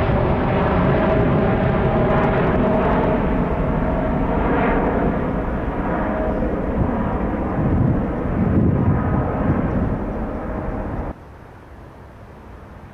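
Jet engines of a twin-engine widebody airliner at climb power passing overhead: a steady, loud jet noise with a droning tone in it, slowly fading as the plane climbs away. About 11 seconds in it cuts off suddenly to a much quieter steady outdoor background.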